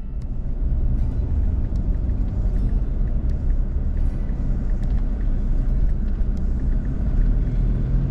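Car driving on a road, heard from inside the cabin: a steady low rumble of engine and road noise.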